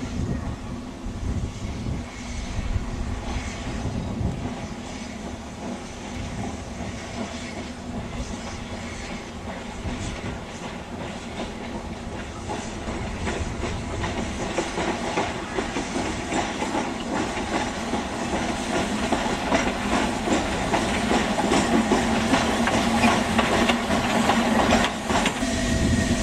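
Narrow-gauge (3 ft) steam locomotive hauling a short passenger train past, its exhaust beats, steam hiss and wheel clatter growing steadily louder as it approaches. The sound changes abruptly about a second before the end.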